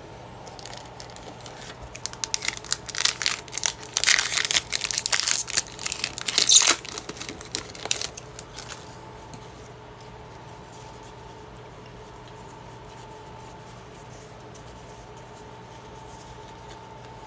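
Foil booster-pack wrapper of a Pokémon trading card pack crinkling and tearing open, a run of sharp crackles that starts about a second in, is loudest from about four to seven seconds in, and stops about nine seconds in. After that only a faint steady hum remains.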